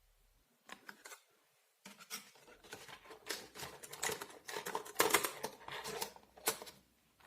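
Paint tubes being handled in their plastic tray: a busy run of small clicks, taps and scrapes that starts about a second in.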